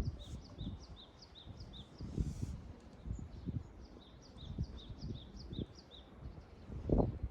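A bird calling with short, high, repeated notes, about two and a half a second, in two runs with a pause between. Wind buffets the microphone throughout as a low gusty rumble, loudest near the end.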